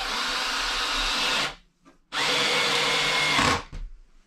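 Power drill running in two bursts of about a second and a half each, with a short pause between, working overhead in the wooden ceiling where the stove pipe passes through; the second burst trails off as the drill stops.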